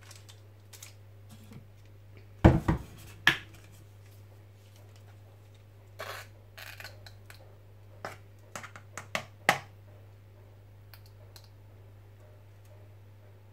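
Plastic measuring spoons clicking against each other and a ketchup squeeze bottle being handled over a mixing bowl. Scattered light clicks and taps come through, with the loudest a pair of knocks about two and a half to three seconds in, over a faint steady hum.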